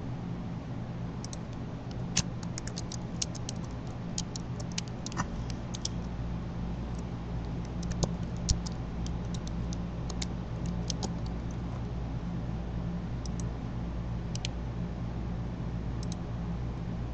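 Typing on a computer keyboard: short bursts of quick clicks, busiest in the first ten seconds and sparser after, over a steady low hum.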